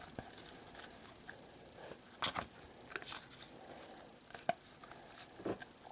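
Trading cards being handled and flipped through by hand: a few scattered light snaps and flicks of card stock.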